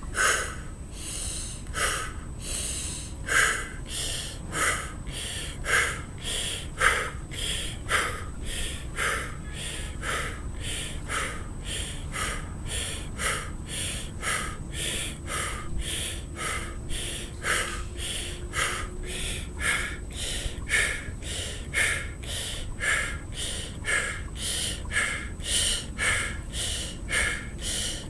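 A man breathing in sharp, forceful, rhythmic breaths, about one a second at first and quickening to about two a second.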